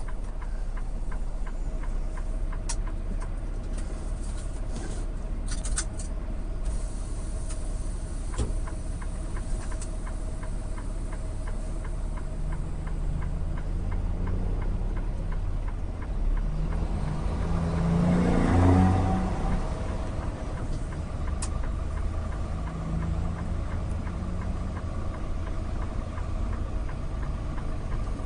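Tractor-trailer on the road, heard from inside the cab: steady engine and road rumble, swelling louder for a couple of seconds past the middle before settling back.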